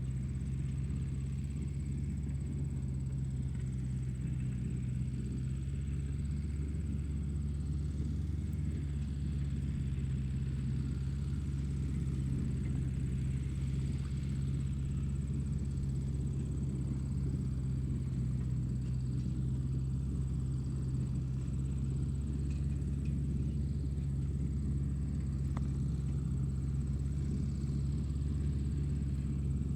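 Tractor engine running steadily at a constant speed: a deep, even rumble that doesn't change.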